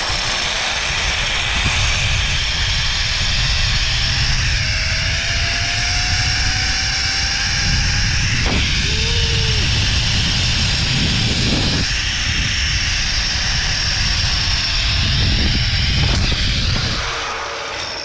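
Zipline trolley pulleys running fast along a steel cable: a steady, slightly wavering high whine over heavy rushing-wind rumble. It fades out in the last second as the trolley slows to a stop at the landing platform.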